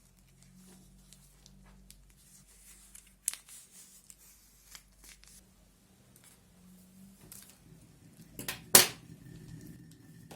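Hands handling slime-making supplies: scattered plastic rustles and light clicks, with a sharp snap about three seconds in and a louder crinkling burst near the end.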